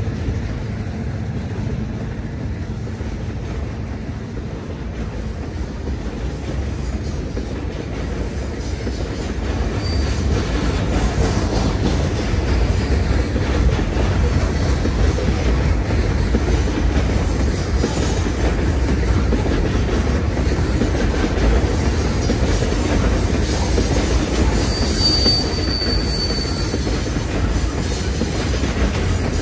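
Freight train's open-top hopper cars rolling past, a steady rumble of steel wheels on rail that grows louder about a third of the way in. A brief high wheel squeal comes about three-quarters of the way through.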